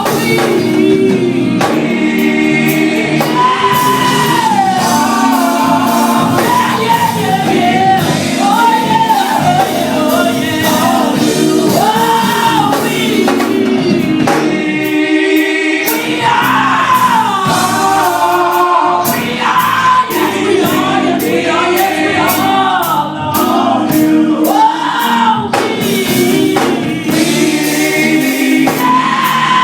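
Music with a choir singing, loud and continuous, with a brief lull about halfway through.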